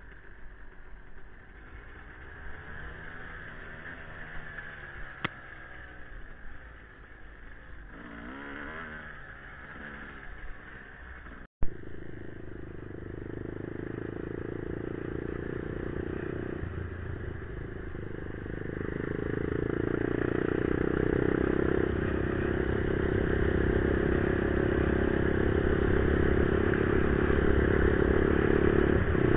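Quad (ATV) engine heard from the machine itself as it is ridden. In the first part it runs low, its note rising and falling with the throttle. After a sharp click about a third of the way in, it runs louder and steadier under throttle, and grows louder again past the middle.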